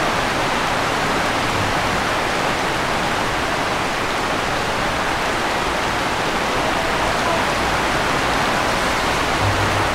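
Heavy rain pouring down steadily, a dense even hiss of rain on the roof and pavement with runoff streaming off the roof edge.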